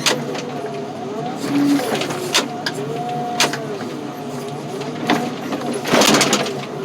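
A heavy machine's engine running, with a whine that repeatedly rises and falls and several sharp knocks. A loud crunching crash comes about six seconds in.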